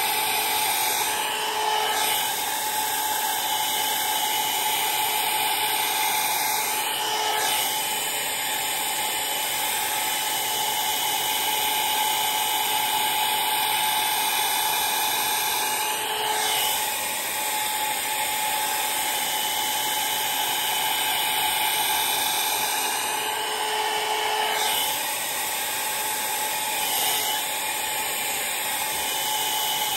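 Handheld electric hair dryer running steadily: a rush of blown air with a steady motor whine, blowing on a held section of hair. The sound dips slightly a few times as the dryer is moved.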